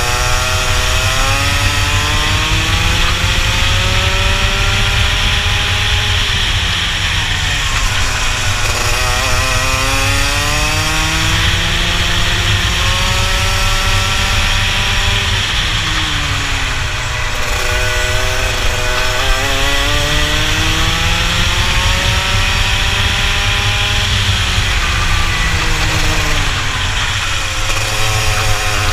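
Rotax two-stroke kart engine heard onboard at race pace. The revs climb on each straight and fall away into the corners, three times over, above a steady low rumble.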